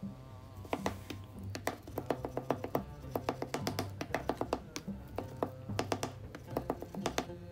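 Chef's knife chopping raw chicken breast on a wooden cutting board: rapid, irregular knocks of the blade against the board, several a second, over background music.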